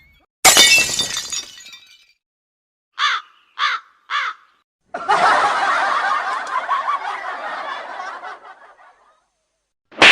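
A run of comedy sound effects. It starts with a sudden crash, like breaking glass, that rings out over about a second and a half. Three short falling squeaks follow around three to four seconds in, then about four seconds of dense, wavering chatter that fades away, and a sharp hit at the very end.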